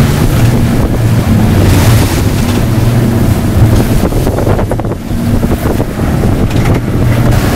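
Boat engine running steadily while the boat is under way, with wind buffeting the microphone and water rushing past the hull.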